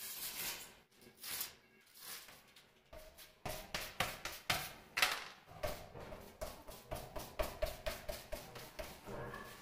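Hand scraper or blade scraping residue off the rim of a stainless-steel sink and the granite counter, in quick repeated strokes of about three to four a second that grow stronger a few seconds in, with the steel sink ringing at each stroke.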